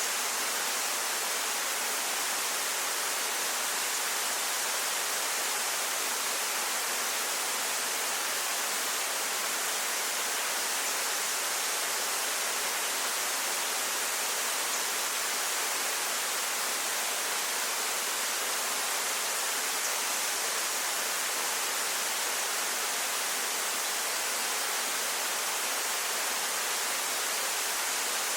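Waterfall rushing steadily: a constant, hissing roar of falling water with little deep rumble, unchanging throughout.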